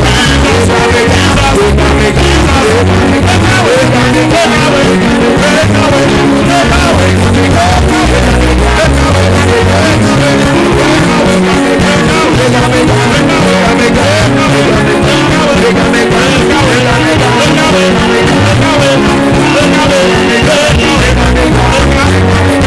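Loud, continuous music with a steady stepping bass line and singing.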